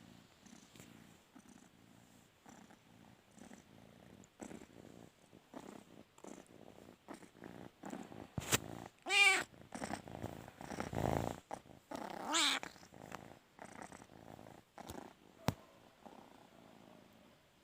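Domestic cat purring in a steady rhythmic pulse, with two loud, wavering meows about nine and twelve seconds in.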